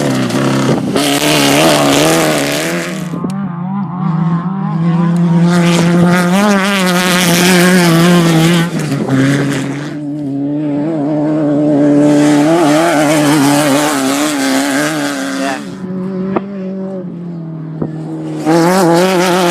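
Off-road race vehicles driving past one after another, about four in turn, each engine's pitch wavering and rising as the driver works the throttle, swelling as it nears and fading away. A fresh one arrives near the end.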